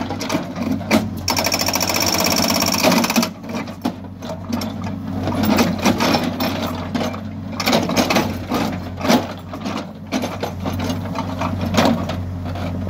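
HİDROMEK backhoe loader's diesel engine running under load while its backhoe bucket digs and scrapes through rocky soil, with stones knocking and clattering against the bucket. For about two seconds a little after the start there is a dense, rapid rattling with a high whine over it.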